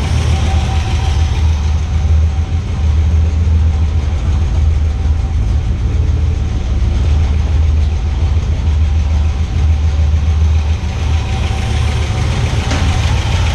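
1979 Ford F-150's 400 V8 idling steadily, running again on a newly replaced distributor with the ignition timing advanced.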